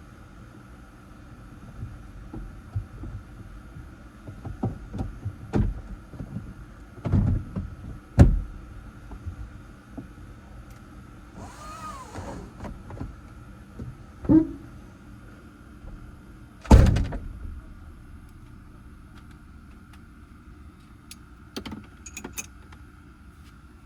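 Scattered knocks, clicks and thumps of handling work in and around a car, with two loud thuds about eight and seventeen seconds in and a short swish between them, over a faint steady hum.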